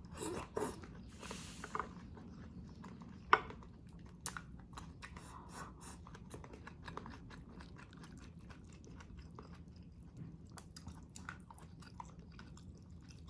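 Close-miked mouth sounds of someone chewing a mouthful of food: wet smacking and many small sharp clicks, with a louder click a little over three seconds in.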